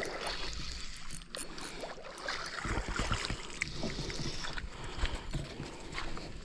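Water splashing and sloshing with many small crackles, as a hooked trout is brought in at the water's edge. A low wind rumble runs underneath.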